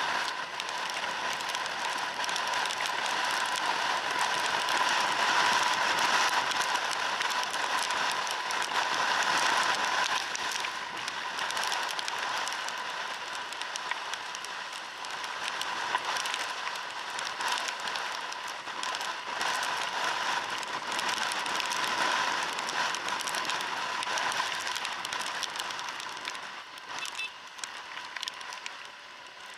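Riding noise on a Suzuki Address 110 scooter in the rain: a steady rush of wind and wet-road hiss on the microphone, with crackles and a faint steady whine, easing a little near the end.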